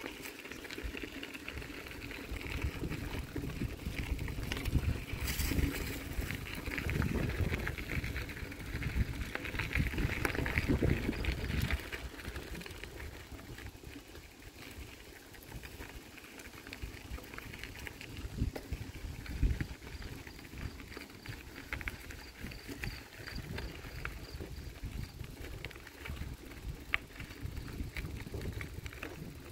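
Bicycle riding along a packed-dirt woodland trail: tyres rumbling over the ground, wind buffeting the microphone, and small clicks and rattles from the bike. It is louder over the first dozen seconds, then eases.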